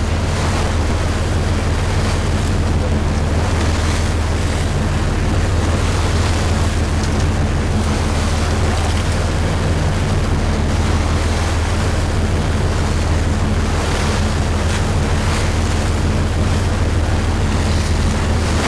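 Sportfishing boat's engines running steadily under way while trolling, with a constant low drone. Wind buffets the microphone over the rush of the wake.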